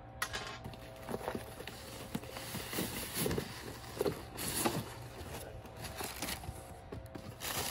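Cardboard cartons rubbing and scraping as a heavy inner box is slid out of its outer shipping box, with a few dull knocks.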